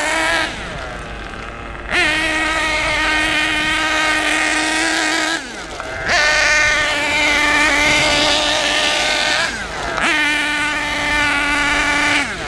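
Kyosho KE21 nitro engine in an MP9 buggy running at high revs with a high-pitched buzz in bursts of several seconds. The revs fall off briefly three times. Near the end the revs drop away as the engine suddenly loses power.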